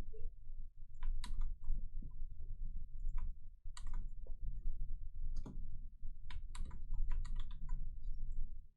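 Irregular clicking of a computer keyboard: scattered keystrokes, then a quick run of them near the end, over a low steady hum.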